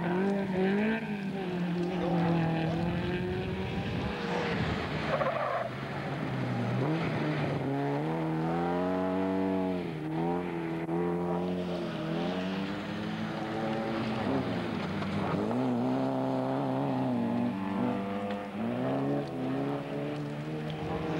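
Rally car engines revving hard, their pitch climbing and dropping again and again through gear changes, with tyres skidding on loose gravel as the cars slide through corners.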